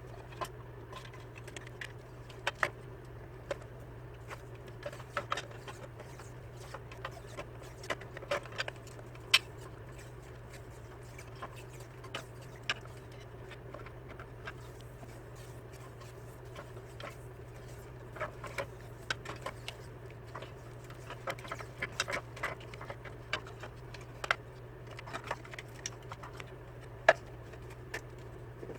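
Irregular light clicks and taps, like small parts and tools being handled on a workbench, over a steady low hum.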